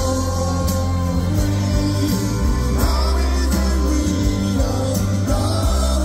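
Live rock band playing loud through a concert PA: a male lead vocal over strummed acoustic guitar, electric guitars, bass and drums with crashing cymbals, heard from within the audience.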